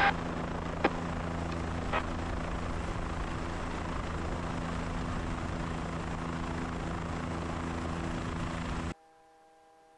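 Helicopter in flight, a steady drone with a low hum and two short clicks in the first two seconds. The sound cuts off abruptly about nine seconds in, leaving only a faint steady hum.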